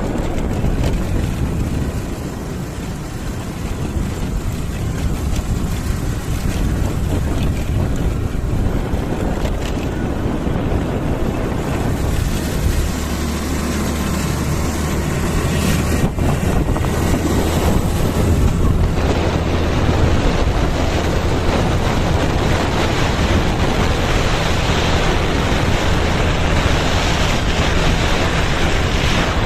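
Wind buffeting the microphone: a loud, steady rumbling noise, with a low hum that grows stronger about 13 seconds in.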